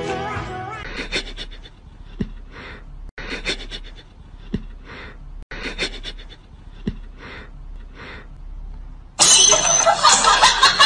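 A cat sniffing at a socked foot: short, breathy sniffs coming in pairs, about one every half second to a second. About nine seconds in, much louder music with beatboxing cuts in.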